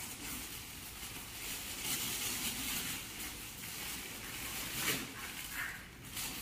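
Polypropylene bag rustling and crinkling as it is handled and filled with cooked wheat grain, with a sharper crackle about five seconds in.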